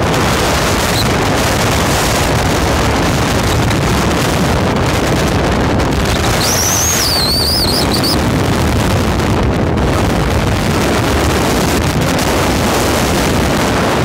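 Strong wind blowing hard across the microphone: a loud, steady roar of wind noise. About six seconds in, a wavering high whistle sounds for about two seconds above it.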